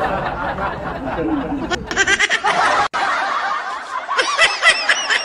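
People snickering and chuckling in short, broken bursts of laughter.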